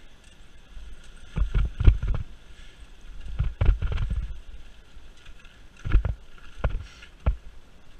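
Mountain bike riding over a leaf-covered forest trail, its tyres rolling with a steady hiss and the bike jolting and rattling over roots. There is a burst of thumps about two seconds in, another around four seconds, and single knocks near the end.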